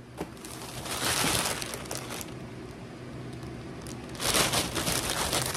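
Thin plastic poly mailer bag crinkling and rustling as hands dig into it and pull items out. It comes in two bouts: one about a second in, and a louder one from about four seconds in.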